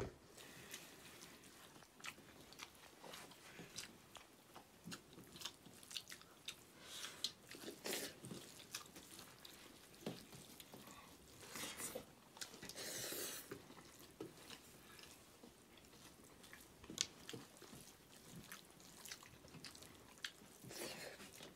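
Faint eating sounds: chewing rice and buffalo meat, with scattered small clicks and scrapes of fingers mixing food on steel plates.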